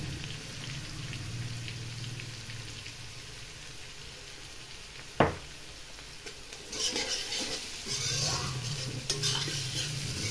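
Vegetables sizzling in oil in a metal kadhai as a metal spatula stirs and scrapes through them. One sharp tap of the spatula on the pan about five seconds in, and busier scraping over the last few seconds.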